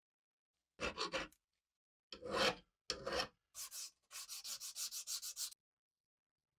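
Rust being rubbed off the steel blade of an antique hand sickle by hand: four short bouts of scratchy strokes, then a quick run of about six strokes a second that stops sharply.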